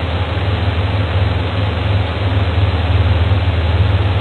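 Steady low hum under an even hiss, with no separate knocks or other events.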